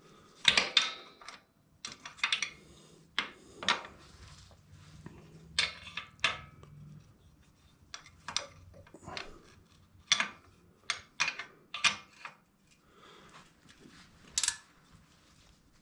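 Metal hand tools and suspension parts clinking and clanking in a string of short irregular knocks while the rear suspension linkage of a Royal Enfield Himalayan motorcycle is put back together.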